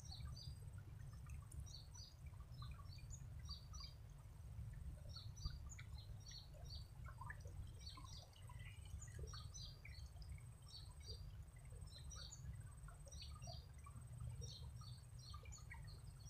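Faint, repeated short high chirps of small birds over the low, steady rush of a shallow river running over stones.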